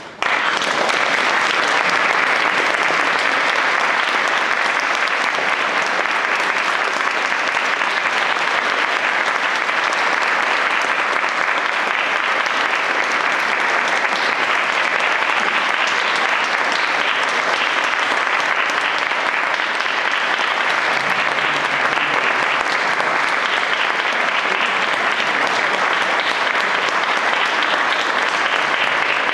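Audience applauding steadily, the clapping cutting in abruptly just after the start.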